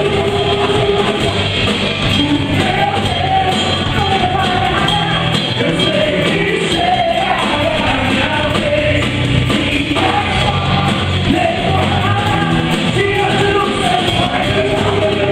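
Live Christian worship band playing with a lead vocal singing the melody, loud and steady throughout.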